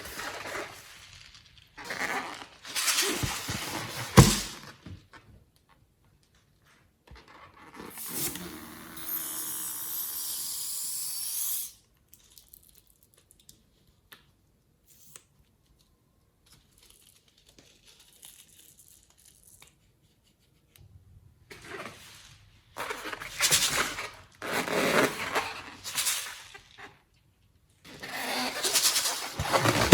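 Slime being worked by hand in bursts of crackling, tearing sounds, with quiet gaps between them. A steady hiss lasts about four seconds roughly a third of the way in.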